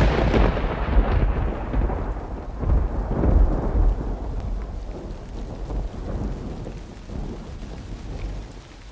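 A roll of thunder over steady rain: the rumble is loudest at the start, swells again twice, then slowly fades away.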